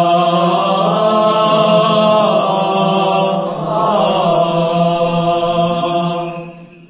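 Armenian Apostolic men's choir chanting a liturgical hymn in unison, the melody moving over a steady held low drone note. The singing fades out near the end.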